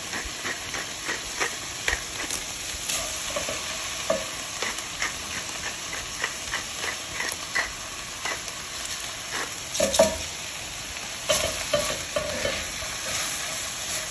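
Sliced onions sizzling in butter and oil in an enamelled cast-iron braiser, with a pepper mill grinding black pepper over them in short clicky bursts and a spatula scraping and stirring through the onions. A louder knock about ten seconds in.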